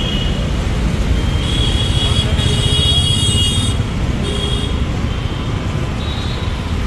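Road traffic and engines running with a steady rumble, over which a horn sounds a series of high toots: one long toot in the first half, then three short ones.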